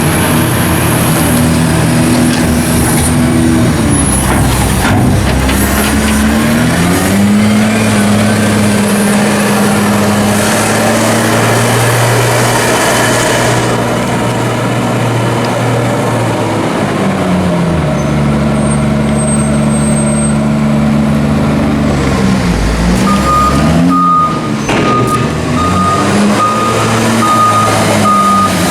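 Heavy farm machine's engine working under load, revving up and down as it moves a load of chopped maize silage. Near the end a reversing alarm starts beeping steadily.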